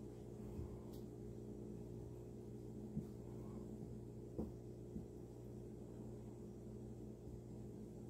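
A steady low electrical hum, with a few soft thumps and bumps from two cats wrestling on a tile floor.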